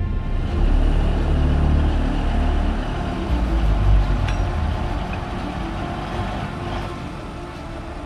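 An engine running with a loud low rumble, loudest in the first few seconds and easing off toward the end.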